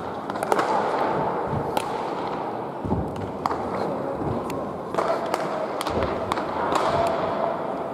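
Baseballs popping into leather gloves as players play catch: a dozen or so sharp smacks at irregular intervals over a murmur of voices.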